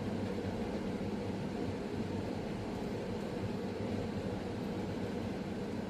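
Steady low hum and hiss of background room noise, with no change through the pause.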